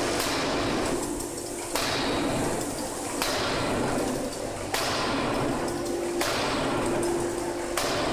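A C61Y fully hydraulic open die forging hammer striking hot steel in a steady rhythm: five heavy blows about a second and a half apart, each followed by a hiss that dies away, over a steady machine hum.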